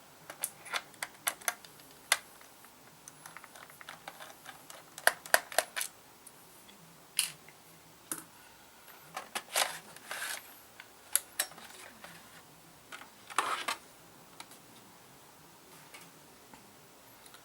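Scattered small clicks and taps of a small Phillips screwdriver working screws out of a laptop's plastic case, irregular and a second or so apart.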